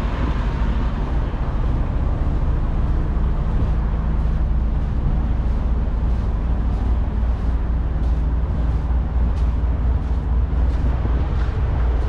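Diesel engine of a parked semi truck idling steadily, with footsteps crunching on gravel about twice a second.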